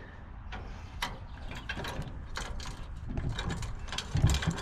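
Hand ratchet clicking in quick runs, with small metallic clinks of U-bolt hardware as it is worked on a Model A front end, and a brief low thump near the end.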